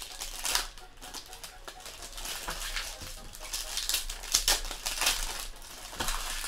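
Foil trading-card pack wrappers crinkling and crackling in quick irregular rustles as packs are ripped open and handled by hand.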